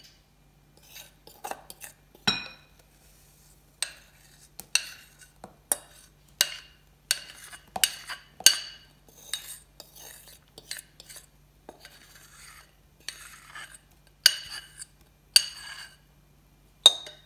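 Metal spoon scraping melted chocolate out of a glass bowl, clinking against the glass in short, sharp, irregular knocks about once a second.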